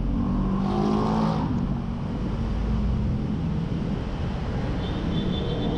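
Motorcycle engine heard from the rider's seat, rising in pitch as it picks up speed in the first second or so, then a steady rush of riding noise.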